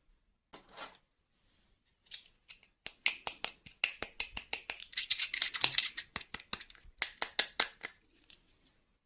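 Hands unboxing a plastic toy: a quick run of small sharp clicks and crinkles, about six a second, starting about three seconds in and stopping about a second before the end, after a few scattered ticks.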